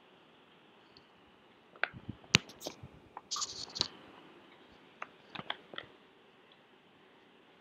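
Scattered sharp clicks and crackles over faint room hiss, in a cluster about two to four seconds in and a few more around five to six seconds in.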